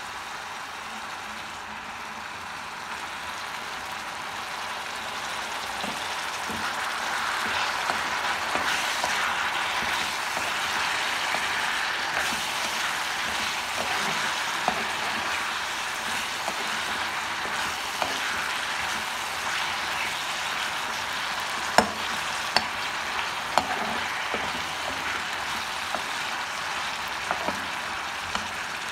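Chicken pieces, onions and curry leaves sizzling in oil in a kadai while being stirred with a steel spoon; the sizzle grows louder several seconds in. A few sharp clicks of the spoon against the pan come about two-thirds of the way through.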